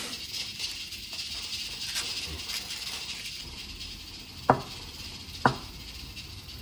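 A chef's knife cutting down through a block of Spam and knocking twice on a wooden cutting board, about a second apart, over a steady background hiss.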